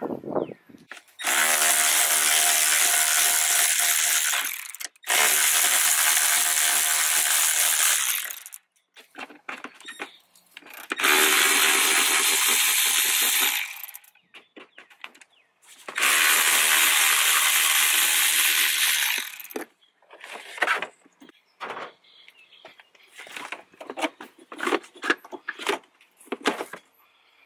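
A power tool spinning out bolts in four runs of about three seconds each, each a steady whine. Between and after the runs come short clicks and knocks of parts being handled.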